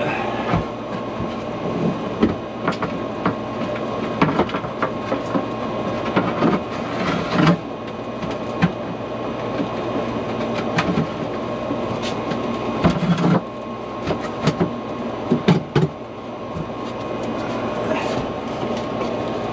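Scattered, irregular knocks and clunks of wooden boards being moved about and fitted in place, over a steady mechanical hum.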